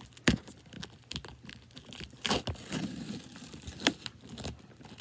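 A plastic-wrapped cardboard box being pried and torn open by hand: crinkling and tearing, with a few sharp snaps as the packaging gives.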